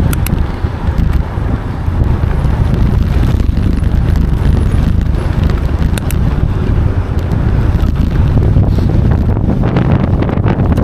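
Strong wind buffeting the microphone: a loud, steady low rumble, with a few faint clicks.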